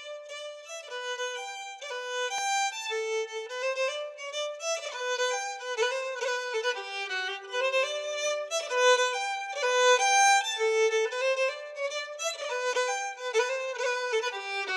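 Background music: a fiddle playing a single melody line, the notes moving faster from about four seconds in.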